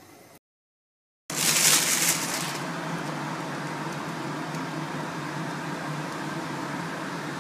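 A steady mechanical hum with a hiss over it starts suddenly about a second in. A louder burst of hiss comes in the first second after it starts, then the hum goes on evenly.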